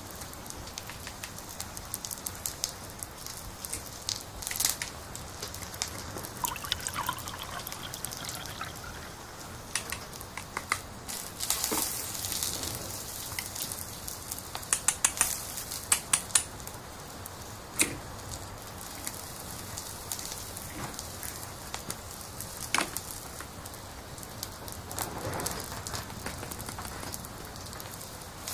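Plastic toy food and utensils being handled: scattered sharp clicks and taps of plastic pieces, with a short wet-sounding burst about twelve seconds in, over a steady faint crackling hiss.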